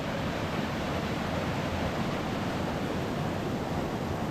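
Small creek running over rocks: a steady rushing of water, loud and even.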